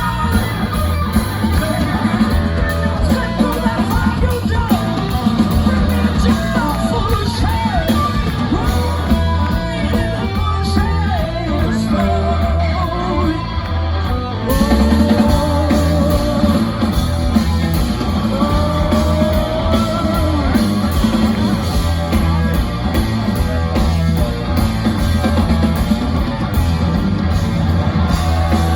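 Live hard rock band playing, with electric guitar and drums under a male lead singer.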